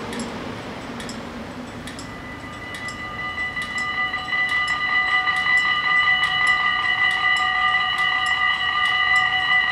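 Level-crossing warning bells of a Dutch automatic half-barrier crossing start ringing about two seconds in. It is a steady, high, multi-tone ringing that grows louder over the next few seconds as the crossing closes for an approaching train. Road traffic noise fades out at the start.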